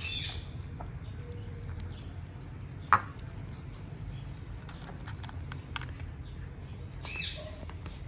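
Cats crunching dry biscuits: scattered small clicks, with one sharp, loud click about three seconds in. Two short high-pitched squeaks come near the start and near the end.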